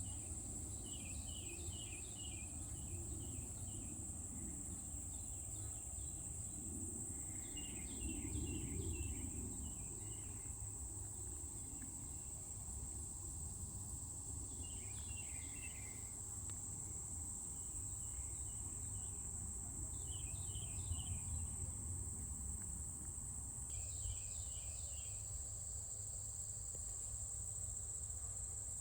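Late-summer insect chorus: one continuous high-pitched steady trill, with short groups of pulsed chirping calls coming in every few seconds, over a low background rumble.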